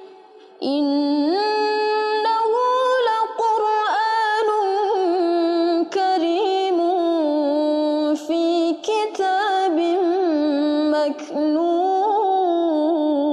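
A woman reciting the Quran unaccompanied in a slow, melodic chant in maqam bayati: one long, ornamented phrase with held, wavering notes, starting after a brief breath about half a second in.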